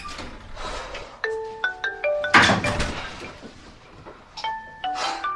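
Phone ringing with a marimba-style ringtone: the same short phrase of bright, quickly fading notes repeats about every three seconds, with short noisy bursts between the phrases.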